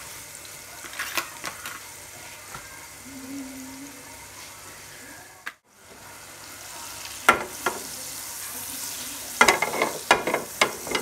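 Butter melting and sizzling in a nonstick frying pan: a steady frying hiss with scattered crackling pops, which come louder and more often in the second half as the butter foams. The sound cuts out briefly about halfway through.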